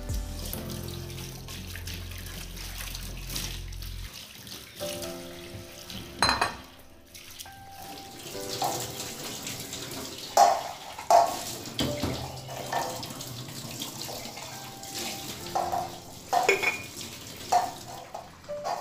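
Tap water running into a stainless steel sink as dishes are rinsed, with several sharp clinks of crockery and glass being handled and set down, over background music.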